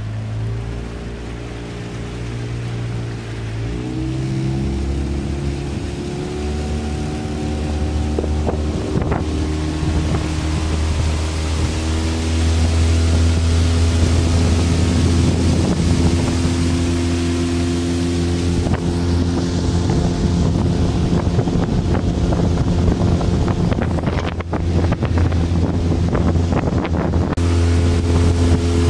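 Small outboard motor driving a boat underway, its pitch climbing as it throttles up about four seconds in, then running steadily at speed. Wind buffets the microphone.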